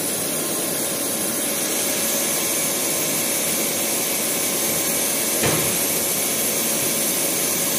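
Steady hiss and hum of a CNC machining centre running in the machine shop, milling an aluminium part, with a single click about five and a half seconds in.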